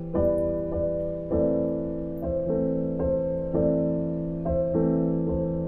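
Gentle background piano music, with notes struck about twice a second and left to ring.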